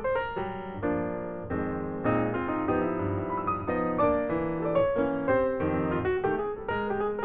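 Background music played on piano: a flowing melody over chords, with notes changing several times a second.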